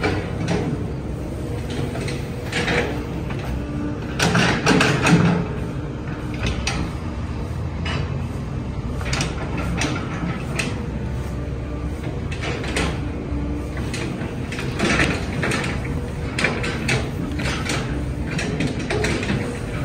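Construction-site noise: a steady low machine rumble with scattered knocks and clanks, the loudest cluster about four to five seconds in.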